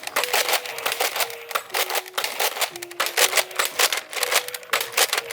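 Battery-powered toy gun playing its sound effects: rapid, irregular clicking over a repeating run of electronic beeps that step down in pitch and start again.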